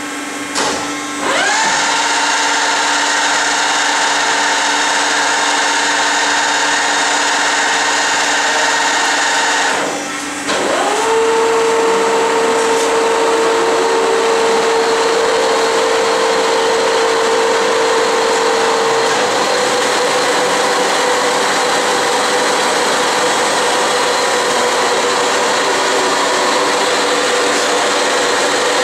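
Mitsubishi CNC gear hobbing machine's drives spinning up with a rising whine about a second in and then running steadily, with no gear blank on the arbor. Near ten seconds the whine drops out briefly, then spins up again and runs on at a lower pitch.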